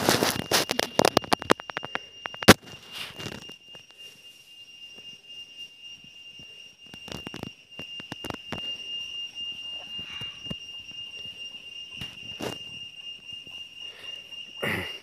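A steady high-pitched insect drone, one unbroken tone throughout. Leaves and branches rustle for the first few seconds, with a single sharp snap about two and a half seconds in.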